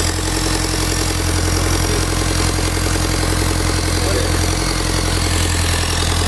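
Peugeot 1.6 HDi four-cylinder diesel idling steadily, its exhaust puffing straight out of the turbocharger's open outlet with the catalytic converter removed. Oil is blowing out of the turbo with the exhaust, which the mechanic takes for a failed turbo or a broken piston.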